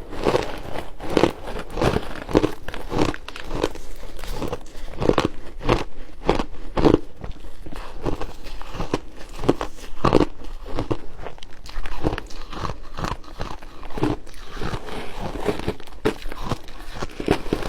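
Close-up biting and chewing of refrozen shaved ice: a continuous series of irregular, sharp crunches, about one or two a second.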